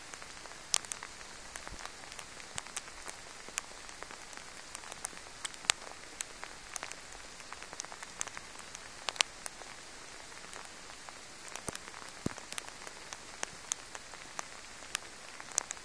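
Light rain: scattered drops tapping irregularly close by over a steady faint hiss.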